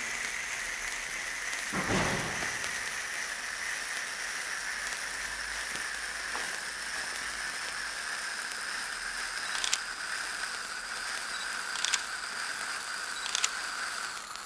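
Pyrotechnic fountain (gerb) spraying sparks with a steady hiss whose pitch sinks slightly as it burns. There is a dull thump about two seconds in and a few sharp crackles in the last five seconds.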